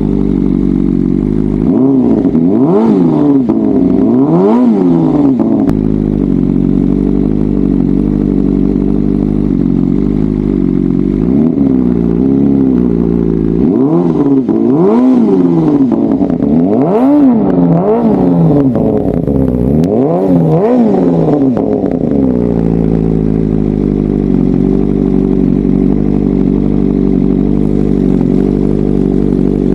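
BMW M1000RR's inline-four engine running through Akrapovič titanium headers and an Austin Racing GP1R slip-on muffler. It idles, is blipped up and back down in a series of revs during the first two-thirds, and then settles back to a steady idle.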